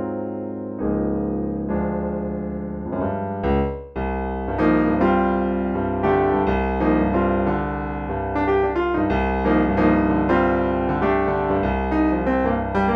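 Crumar Baby Grand digital piano played solo: slow held chords at first, then after about four seconds a deep bass note comes in and the playing turns busier and fuller.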